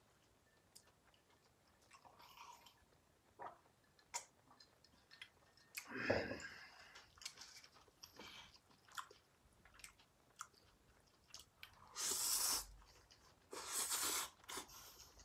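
Close-up mouth sounds of eating yakisoba noodles: soft chewing with small wet clicks, then two long noodle slurps near the end.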